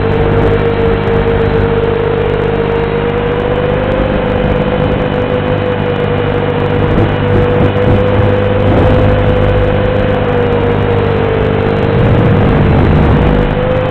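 FPV quadcopter's brushless motors and propellers in flight, heard through the video transmitter's built-in microphone: a loud, steady whine whose pitch wavers slightly up and down with throttle, over a rushing noise.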